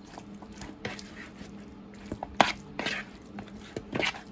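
A metal utensil clinking and scraping against a mixing bowl while raw chicken wings are tossed in jerk seasoning: scattered sharp clicks, the loudest about halfway through, over a faint steady hum.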